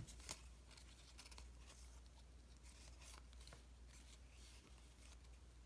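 Faint, soft rustling and scattered light clicks from baseball cards being handled and flipped through, over a low steady hum.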